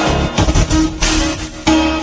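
Music with a plucked-string instrument: several sharp plucked notes over steady held tones.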